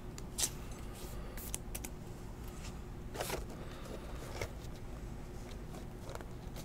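A sleeved trading card being slid into a clear plastic top loader: a few brief scrapes of plastic on plastic, the strongest a little after three seconds, over a faint steady hum.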